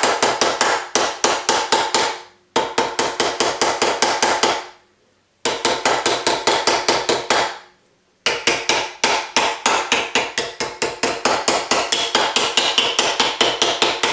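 A white-headed forming hammer striking a reticulated-silver cuff blank over a steel stake held in a vise, in quick runs of about five or six blows a second. Each blow carries a short metallic ring, and the runs break off briefly three times. The blows are hammering the first course of an anticlastic curve into the cuff.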